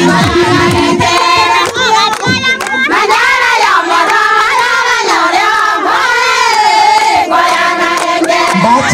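A crowd singing and calling out together in high voices, many voices overlapping. The backing music's bass drops out about half a second in and comes back near the end.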